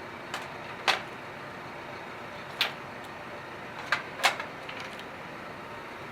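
Hydraulic hose couplers being handled and pushed into a tractor's remote outlets: about five sharp metal clicks and clacks, the loudest two near the middle and end, over a steady background hum.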